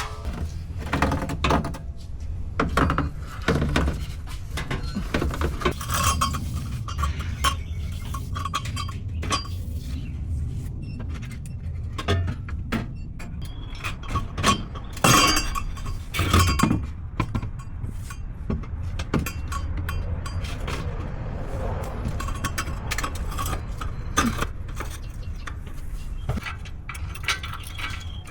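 Metal clinks and knocks of hand tools and exhaust parts, scattered irregularly throughout, the loudest about fifteen seconds in, over a steady low hum.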